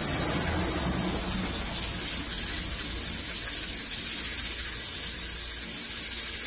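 Steady hiss from an aluminium stovetop pressure cooker heating on a gas burner.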